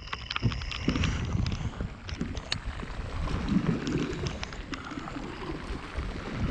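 Kayak on the water: water sloshing and gurgling against the hull, wind rumbling on the microphone, and scattered light ticks.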